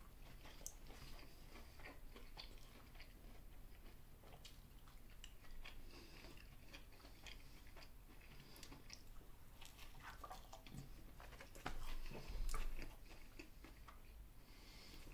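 Faint eating sounds: a person biting into and chewing a soft chicken burger, with scattered small mouth clicks. A dull low bump about twelve seconds in is the loudest sound.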